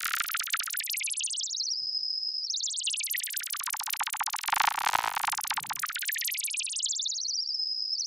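ZynAddSubFX software synth playing noise through a resonant bandpass filter swept by a fast LFO, making a rapid, even insect-like chirping. The sweep range is tuned in real time: it closes to a thin high tone about two seconds in and again near the end, and opens wide between, dipping lowest about five seconds in.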